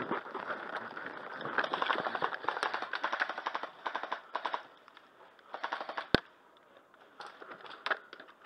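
Airsoft rifles firing in rapid full-auto bursts, several short strings of fast clicking shots, with a single sharp crack about six seconds in.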